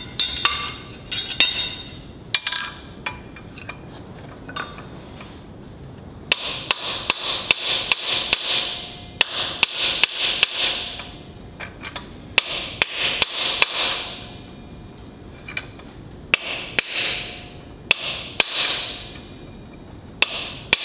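Hammer driving a steel punch against the spindle-nut lock washer of a truck's steer-axle hub, bending its locking tabs over. The strikes come in several quick runs of metal-on-metal taps with short pauses between, each tap with a bright ring.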